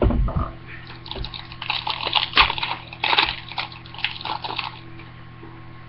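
Crinkling and crackling of a foil trading-card pack wrapper being handled and torn, with cards rustling, over a steady electrical hum.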